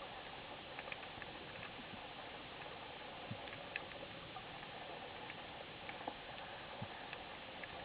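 Underwater ambience heard through a camera housing: a steady hiss with scattered, irregular sharp clicks and crackles.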